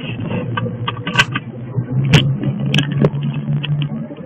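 Moving car heard from inside the cabin: a steady engine and road hum, with about four sharp rattles and knocks a second or so apart.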